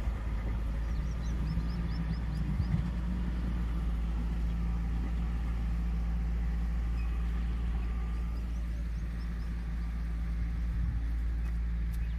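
Maruti Gypsy 4x4 engine idling steadily, a constant low hum with a deep rumble under it.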